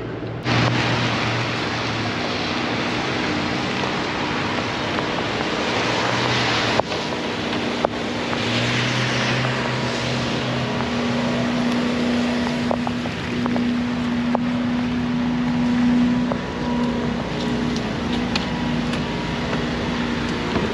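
Steady outdoor noise of wind on the microphone over the low hum of a running vehicle engine, starting abruptly about half a second in.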